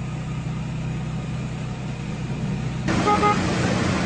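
Car engine idling with a steady low hum; about three seconds in the background noise suddenly gets louder and a car horn gives two short toots.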